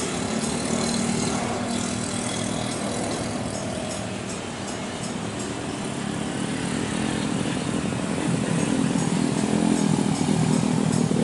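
Jet engines of an Airbus A320-family airliner at climb power just after takeoff, a steady low roar that grows louder over the last few seconds.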